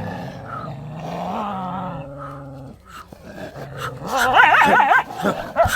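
Indian desi street dogs fighting: a low, steady growl for the first couple of seconds, then loud, high, wavering cries from about four seconds in.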